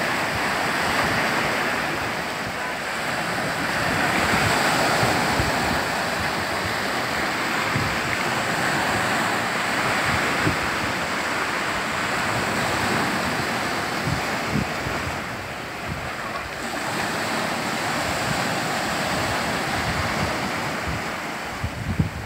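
Small sea waves breaking and washing over a rocky, pebbly shore, the surf swelling and easing every few seconds.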